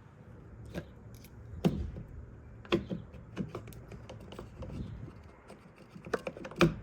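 Sharp, irregular clicks and knocks of a truck's door handle and its latch hardware being fitted and worked by hand, with the loudest clicks about a second and a half in and just before the end.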